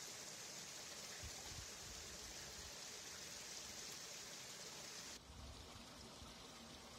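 Faint, steady hiss of water running in a levada irrigation channel. About five seconds in, the brighter part of the hiss cuts off suddenly, leaving a quieter, duller rush of water.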